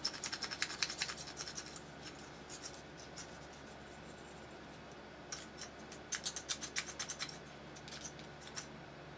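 Rapid scratching and rubbing of a stiff 3D-printed plastic leg joint as it is worked to free it. It comes in two runs of quick strokes, at the start and again from about five seconds in. The roughness comes from a glob of super glue left inside the joint's trough.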